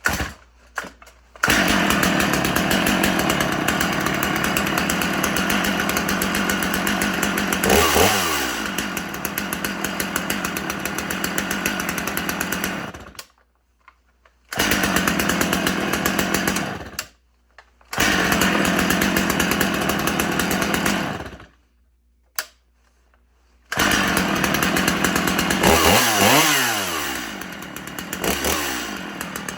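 Lightweight Stihl gas chainsaw running at high revs while cutting tree limbs, in several stretches broken by short, sudden silences. The engine pitch dips and recovers about eight seconds in and again near the end, as the chain loads up in the wood.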